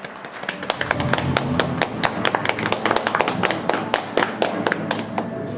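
Small audience applauding: many irregular sharp claps that grow denser about half a second in and keep going.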